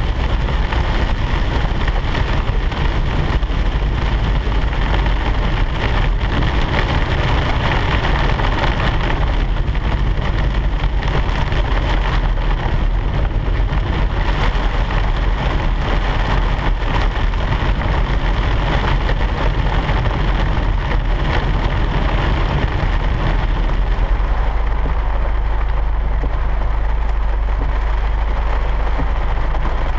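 Steady noise inside a car driving through heavy rain: engine and tyre rumble, with rain pattering on the roof and windscreen.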